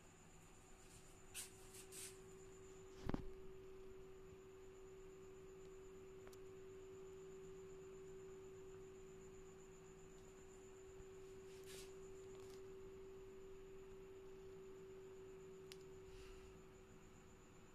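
Near silence with a faint, steady low hum and a fainter high whine under it, and one sharp click about three seconds in.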